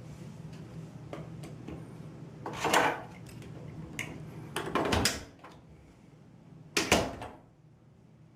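A door locked with a bent dinner fork rattling and knocking in its frame, with three loud clattering bursts a couple of seconds apart.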